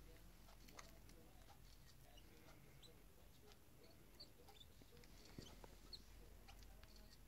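Near silence: faint small clicks and about four brief, high-pitched squeaks scattered through the quiet.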